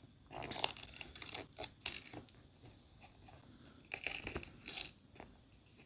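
Paper tearing in short crackly bursts as the perforated edges are ripped off a Google AdSense PIN mailer, in two spells: one near the start lasting about two seconds, and a shorter one about four seconds in.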